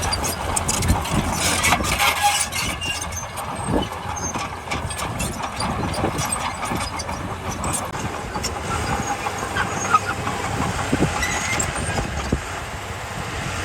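Heavy earthmoving machinery's diesel engine running steadily, with scattered sharp clanks and knocks over the low engine drone.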